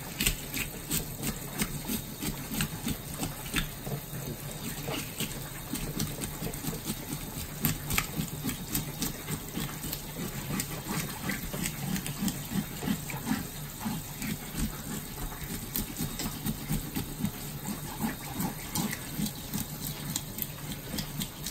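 Kitchen tap running onto fish in a stainless steel sink, water splashing steadily, with frequent irregular knocks and rubbing as gloved hands scrub and turn the black bass under the stream.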